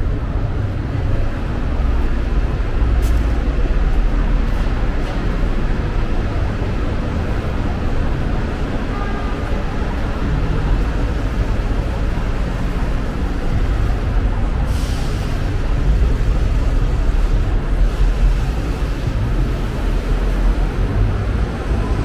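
Steady street traffic rumble from cars and buses passing beneath an elevated railway, swelling a few times as vehicles go by. About 15 seconds in there is a short hiss.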